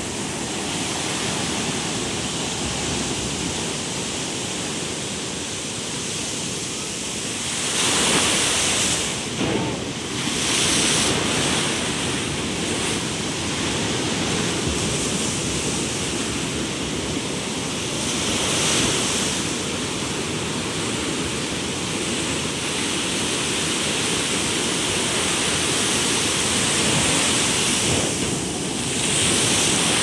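Ocean surf washing over flat rocks at the water's edge: a continuous rush of foaming water that swells louder as each wave breaks and runs in, about a second in from 8, 11, 19 and 29 s.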